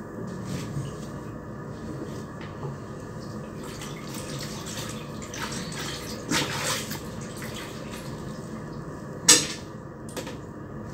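Laundry being washed by hand in a plastic tub of soapy water: water running and sloshing as wet clothes are pressed down and lifted, with a few splashes and one sharp wet slap near the end.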